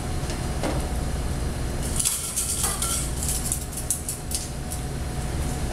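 Utensil clinking and scraping in a frying pan of potato and onion, in a cluster of sharp clicks between about two and four and a half seconds in, over a steady low hum.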